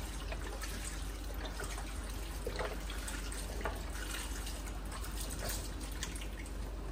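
Chicken stock poured steadily from a 32-ounce carton into a pot of soup ingredients.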